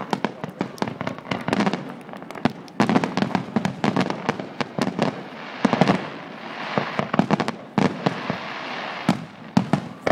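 Aerial fireworks bursting: a rapid run of sharp bangs and crackling, with a stretch of dense, hissing crackle from about six to nine seconds in.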